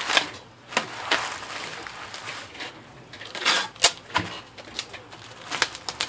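Packing tape pulled off a pistol-grip tape gun in several short, noisy rips with sharp clicks, the loudest about two-thirds of the way through, as it is stretched tight around bubble wrap, with bubble wrap crinkling under the hands.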